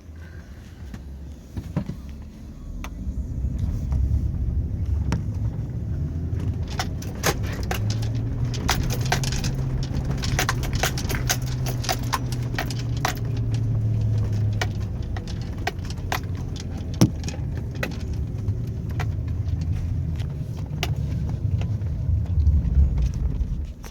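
Chevy Avalanche's V8 running under load while driving off-road through snow, a steady low rumble that builds about three seconds in, with frequent sharp clicks and rattles from the jolting truck and one louder knock past the middle.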